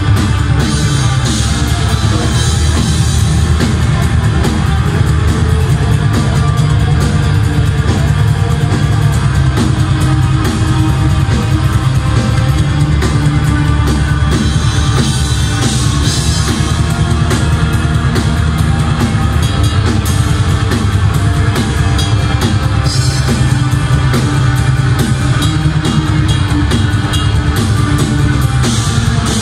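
Live metal band playing loud: electric guitars, bass and a drum kit with fast, dense drumming.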